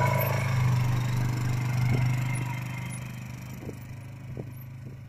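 Quad bike (ATV) engine running steadily as it tows a rescue trailer away, fading from about two seconds in as it draws off, with a few light knocks along the way.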